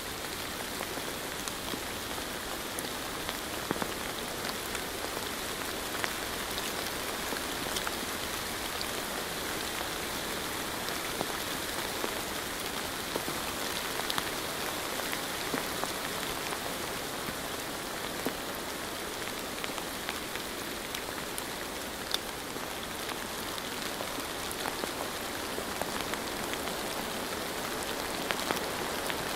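Steady rain: an even hiss of rainfall with many individual drops ticking sharply here and there.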